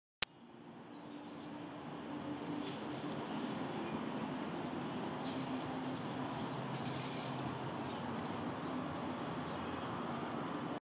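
Small birds giving many short, high chirps in quick succession over a steady low background hum. A single sharp click sounds right at the start.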